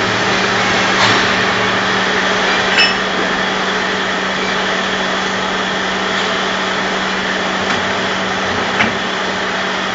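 Multi-spindle drilling machine with hydraulic slides running: a steady machine hum over even noise, with a few short sharp knocks, about a second in, near three seconds and near the end.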